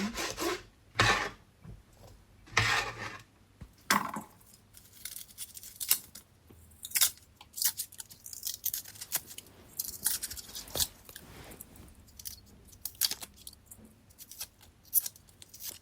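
Kitchen knife cutting a red sweet pepper fine on a chopping board: irregular crisp cuts and crunches, a few longer strokes in the first few seconds, then shorter, sharper cuts.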